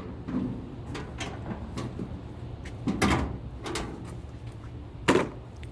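Clunks and knocks from handling: two loud, sharp clunks about two seconds apart, with lighter knocks and rustling between.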